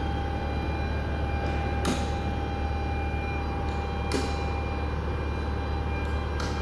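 Lexus GS350's 3.5-litre V6 idling: a steady low hum with a few thin steady tones above it. Three short clicks come about two seconds apart.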